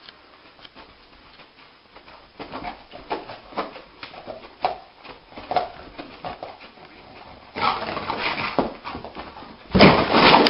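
A dog making a string of short, pitched yelping sounds, starting a couple of seconds in. Louder, noisier sounds come near the end.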